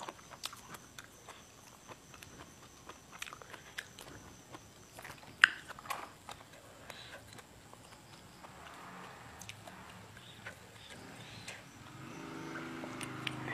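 Close mouth sounds of someone biting and chewing fresh and blanched leafy vegetables, with scattered wet clicks and one sharper click about five and a half seconds in. A faint low hum comes in near the end.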